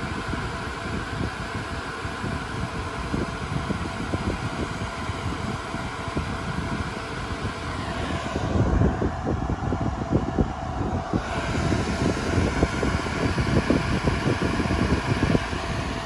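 Cooling fans of a Dell Compellent SCV2020 storage array running steadily, a constant hiss with a steady whine. About halfway through there are a few seconds of low rumbling from the phone being handled, which muffles the higher hiss.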